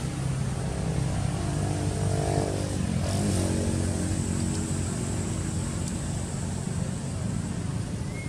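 A motor vehicle's engine running steadily, its pitch dipping and then climbing again about three seconds in, like a change of revs or gear.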